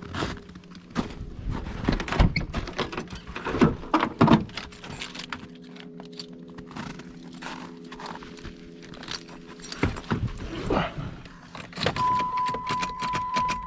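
Keys jangling and clicking as the key is worked in the Jeep Grand Cherokee ZJ's sticking ignition switch, in irregular rattles. A steady electronic warning tone comes on near the end.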